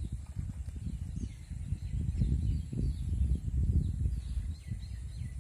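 Wind buffeting the microphone in a low, irregular rumble. Faint short falling bird chirps repeat over it, with a faint steady high insect-like hum.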